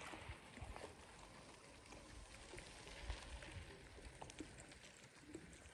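Near silence: faint outdoor background with light scattered crackles and a few soft low thumps, the strongest about three seconds in.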